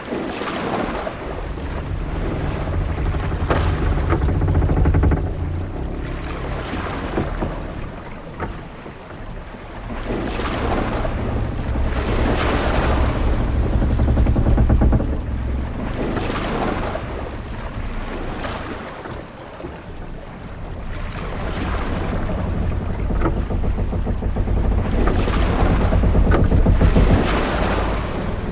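Ship-at-sea ambience: waves washing against a ship's hull, with wind and a deep rumble of the sea. The sound swells and fades in slow surges every several seconds.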